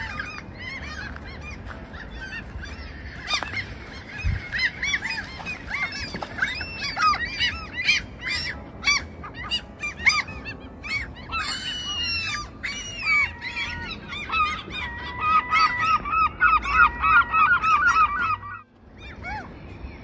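A flock of gulls calling over water: many overlapping harsh calls that rise and fall in pitch, loudest and fastest in the second half. The calling drops out abruptly for a moment near the end.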